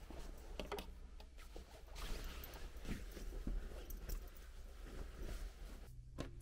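Faint rustling of fabric with small knocks and clicks as clothes are taken down off a hanger and handled, denser through the middle.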